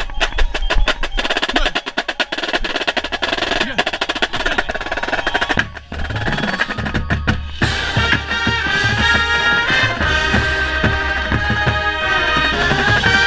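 Drum and bugle corps playing live: the drumline's snares and tenors play rapid, busy figures for the first half, then after a short break the brass section comes in with sustained chords over bass drum hits about eight seconds in.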